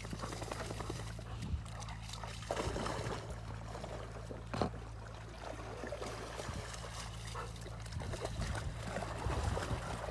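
Water trickling and dripping as wet dogs move about at the water's edge, over a steady low hum.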